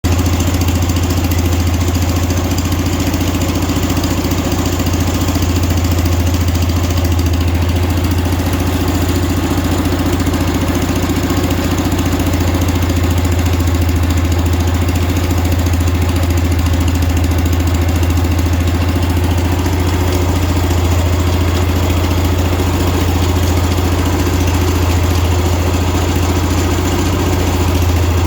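Engine idling steadily with a strong low hum, recorded because the owner suspects a bad drive belt.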